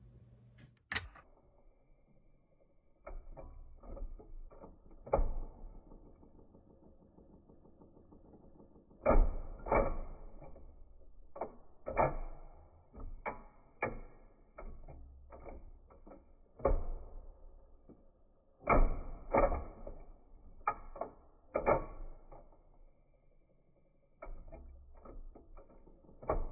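Sony FC567 cassette deck's auto-reverse mechanism switching play sides, heard slowed down: a series of irregular, drawn-out clicks and clunks as the head and pinch roller assembly pulls away, the head turns over and the assembly rises again. A low rumble runs between the strikes, and the heaviest clunks fall in clusters about a third of the way in and again about three-quarters in.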